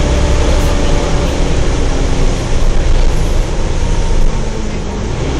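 Wright Eclipse Gemini double-decker bus running, a heavy low rumble with a steady whine over it: the loud 'hoover' sound.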